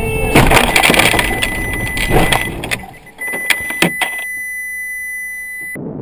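Car collision through a dashcam's microphone: the camera car hits the side of a white SUV with a loud crunching impact about half a second in, followed by clattering. A few sharp knocks follow, and a steady high electronic tone sounds from about three seconds in until the sound cuts off abruptly near the end.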